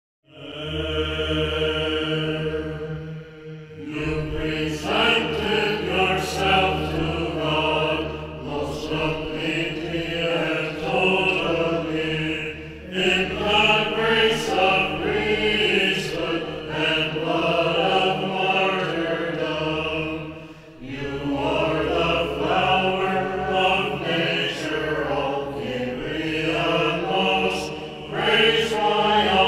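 Byzantine chant: a prosomoion sung in the fourth mode (Legetos), over a steady low held note. It opens on a long held note, the melody begins to move about four seconds in, and it pauses briefly for breath a few seconds in and again about two-thirds through.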